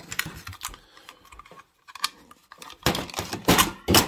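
Clicks and rattles of a chainsaw chain brake assembly being handled: the metal coil spring, steel brake band and brake handle knock against the plastic clutch cover. There are a few louder knocks near the end.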